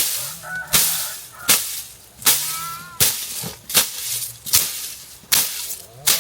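Rhythmic swishing strokes, about one every three-quarters of a second. Each is a sharp hit that fades off in a hiss. Short chirping calls sound between some of the strokes.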